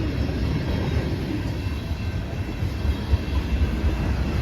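Freight cars of a long CSX mixed freight train rolling past with a steady low rumble of wheels on rail, with a single sharp clack about three seconds in.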